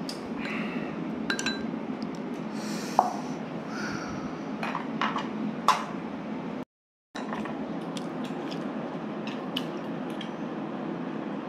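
Dishes and cutlery clinking and knocking now and then over a steady low hum. All sound cuts out for about half a second just past the middle.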